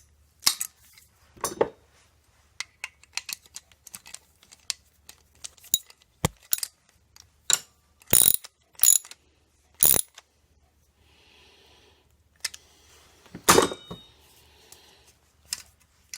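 Small metal hardware being worked by hand: a run of sharp, irregular clicks and clinks as nuts are fitted and tightened on the backup aid's bolt or threaded rod, with a few louder metal knocks about eight to ten seconds in and again near the end.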